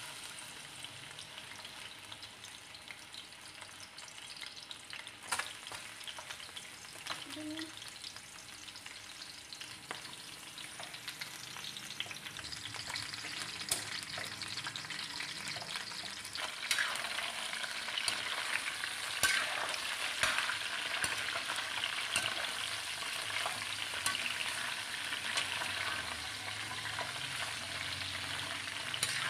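Chicken feet frying in hot cooking oil in a metal wok, a steady sizzle that grows louder from about halfway through, with scattered clicks and scrapes of a metal spatula against the wok.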